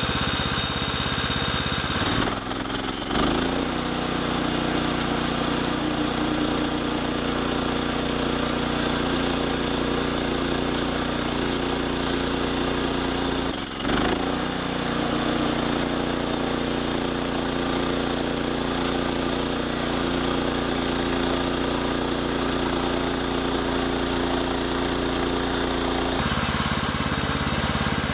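Sawmill's engine running steadily while milling lumber, with a couple of sudden breaks in the sound about two to three seconds in and near the middle, and a change in its low note near the end.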